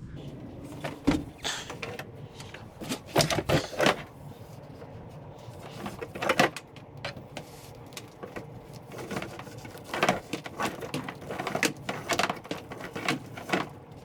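Irregular rustling, scraping and light knocks from network cable and gear being handled and pulled, in bursts of a fraction of a second to about a second.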